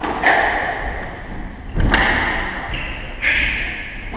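Squash ball cracking off racquets and the court walls during a rally: three sharp hits about a second and a half apart, each ringing on in the echoing court.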